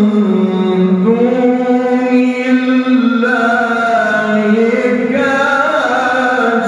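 A man's voice chanting a slow, melodic Arabic recitation in the Quranic style, with long held, ornamented notes that glide up and down without a break.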